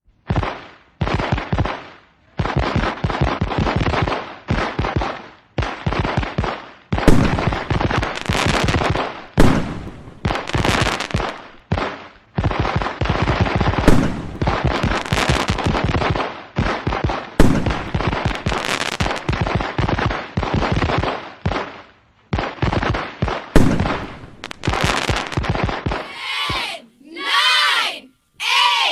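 Fireworks going off in repeated volleys, each a dense crackling rattle of pops with occasional sharper bangs, separated by short gaps. Near the end the crackling stops and a crowd's voices are heard shouting.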